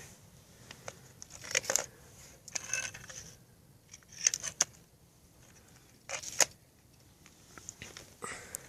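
Scattered clicks and short rattles from small parts being handled, a few separate bursts with quiet between them.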